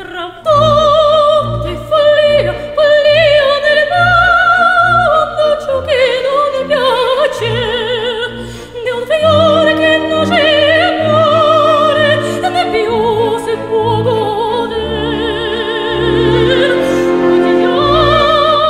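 Operatic singing with orchestra: a high voice holding long notes with wide vibrato over sustained accompaniment.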